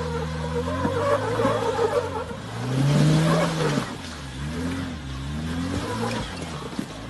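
Jeep Wrangler Rubicon engine revving up and down repeatedly under load as it crawls over a rock ledge, loudest in a long rise about three seconds in, with a few sharp knocks of the tires and underside on rock.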